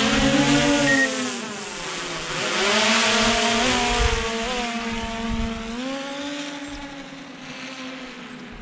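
Quadcopter drone's propellers whining as it lifts off and climbs away. The pitch shifts as the motors change speed, and the whine fades steadily through the second half as the drone moves off.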